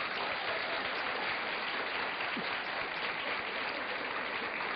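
Studio audience applauding, a steady patter of many hands clapping.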